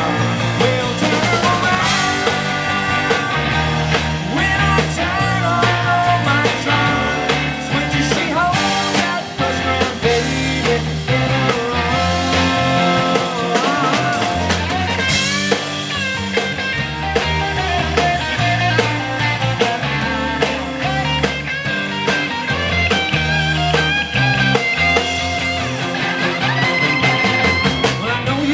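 Live rock band playing an instrumental break: drums, bass guitar and electric guitars, with a lead guitar line bending over the top.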